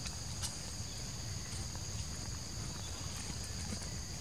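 Insects buzzing in a steady high-pitched drone of two tones, over a low rumble, with a faint click about half a second in.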